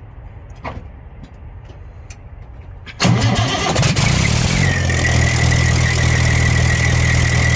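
An engine suspected of a bad injector is started: it fires up suddenly about three seconds in and settles into a steady idle, with a steady high whine over the running.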